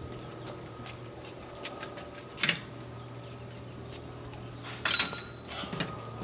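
A few sharp clanks and knocks as a chicken plucker's drum and metal frame are manhandled. The loudest come about two and a half seconds in and around five seconds in, over a steady background hum.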